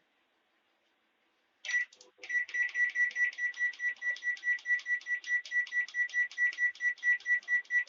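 Samsung microwave oven's control panel beeping as the cooking time is set: one beep a little under two seconds in, then a fast, even run of short electronic beeps, about six a second.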